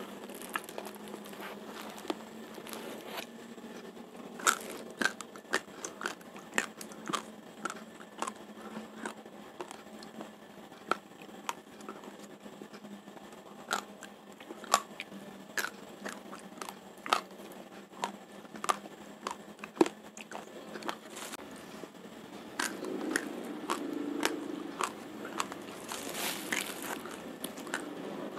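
Raw Rojolele rice grains crunching between the teeth as a mouthful is chewed, sharp irregular cracks about one or two a second. A brief rustle of the plastic rice sack comes near the end.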